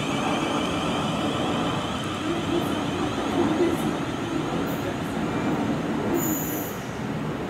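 Class 450 Desiro electric multiple unit running away along the track: a steady rumble of wheels on rail, with a high motor whine that fades out in the first second. A brief high-pitched wheel squeal comes near the end.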